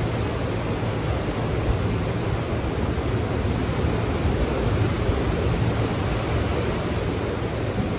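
Ocean surf washing onto the beach: a steady, unbroken rush of waves with a low rumble underneath.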